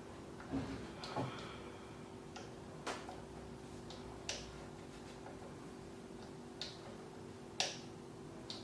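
Irregular light clicks and taps, about seven over several seconds, from handling the iMac's magnetic power cable and its connector, over a faint steady hum.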